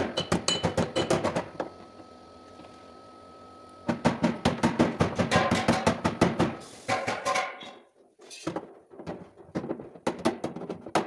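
Body hammer tapping rapidly on sheet metal backed by a dolly, straightening a Ford Taurus's rear fender panel: runs of about seven sharp, ringing strikes a second. The tapping stops for about two seconds near the start and turns patchy and fainter around eight seconds in.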